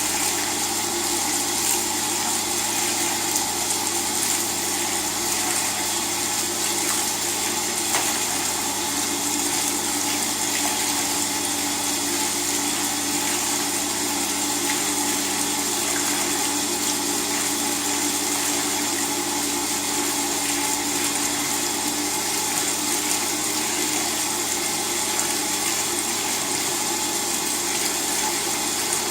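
LG WT-R852 direct-drive washing machine running through a cycle: steady water noise with a continuous motor and pump hum.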